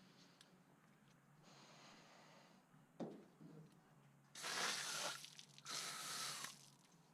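Hand wet-sanding with 400-grit paper on a painted door jamb: a faint stroke, a light knock, then two louder strokes of wet paper scrubbing over the paint a little past halfway.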